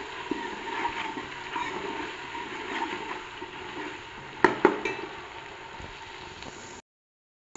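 Onions, garlic paste and tomatoes sizzling in ghee in a large metal pot while a metal ladle stirs them. About four and a half seconds in, the ladle knocks sharply twice against the pot. The sound cuts off suddenly near the end.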